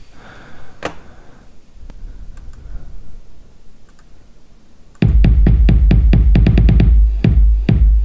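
A single sharp click about a second in, then electronic music playback starts suddenly about five seconds in: a deep, steady bass with rapid drum-machine hits, several a second.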